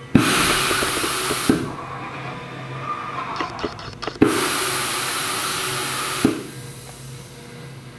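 Haas EC-300 horizontal mill's pallet changer swapping pallets: two loud hisses of air, the first about a second long and the second about two seconds, each starting and ending with a clunk, with lighter mechanical clatter between them.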